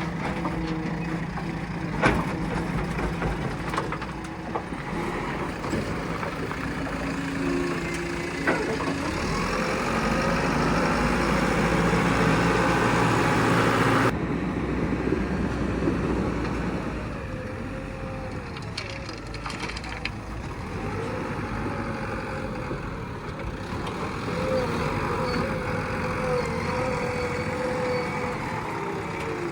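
Diesel engine of a JCB backhoe loader running while it loads aggregate into dumper trucks. The engine builds louder under load, then drops off sharply about halfway through. A couple of sharp knocks come early on.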